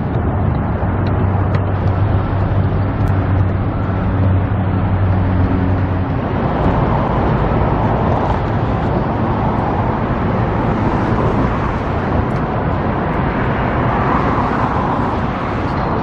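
Motor vehicle noise: an engine hums steadily for about the first six seconds, then a steady broad rumble of traffic takes over.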